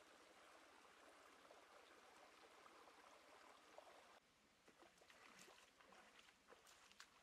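Near silence: a faint steady hiss that drops away abruptly about four seconds in, followed by a few faint scattered clicks.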